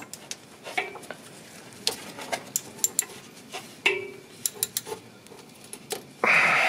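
Scattered metallic clicks and clinks of a socket wrench worked by hand on the new alternator's upper mounting bolt, with a louder half-second rasp near the end.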